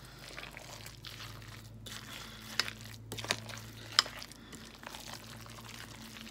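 A utensil stirring dressed chicken salad in a glass bowl: a soft, wet mixing sound, with a few sharp clicks of the utensil against the glass between about two and a half and four seconds in, the loudest near the four-second mark.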